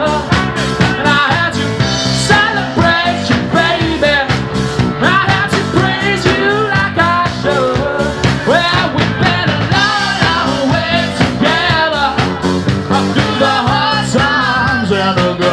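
Live rock band playing, with a lead melody line over a steady beat.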